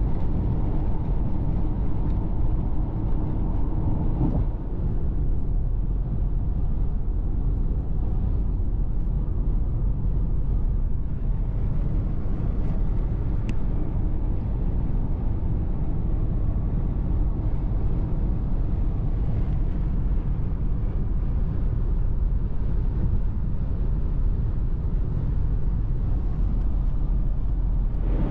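Steady low rumble of a moving car: road, engine and wind noise. A steady hum in it stops about four seconds in.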